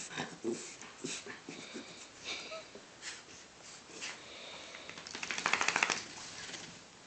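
Two small dogs play-wrestling on carpet: scuffling, panting and snuffling, with a short, rapid, raspy burst about five and a half seconds in.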